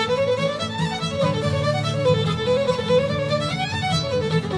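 Fiddle music: a quick, running melody over a steady lower accompaniment.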